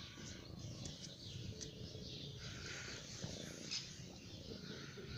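A kitten purring steadily, with small birds chirping in the background.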